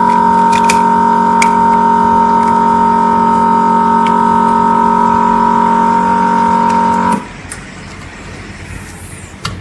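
Vacuum pump of an LCD screen separator machine running with a steady hum, which cuts off suddenly about seven seconds in as the suction is released. Light clicks come from prying a phone's plastic frame.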